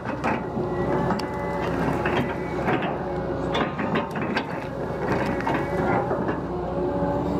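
Hydraulic excavator working, its engine running steadily under a hydraulic whine, with irregular knocks and cracks as the bucket digs and breaks through stumps, roots and woody debris.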